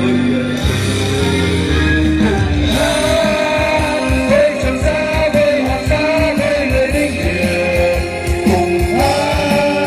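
Male chorus singing a Vietnamese patriotic song over a backing band with a steady beat, holding long notes.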